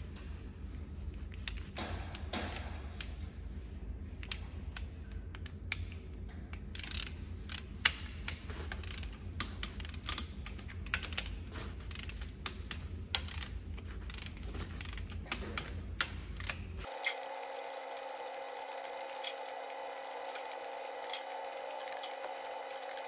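Ratchet wrench clicking in irregular runs over a low workshop hum as the cylinder head bolts of a Volvo D13C engine are tightened. About three-quarters of the way through, the sound changes abruptly: the hum drops out, replaced by a steady higher hum with lighter clicks.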